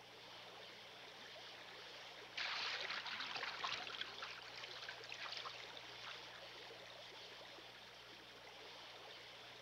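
Shallow gravel stream running, with a burst of splashing starting about two and a half seconds in and fading over the next few seconds: a female king salmon lying on her side and flapping to dig her nest in the stream bed.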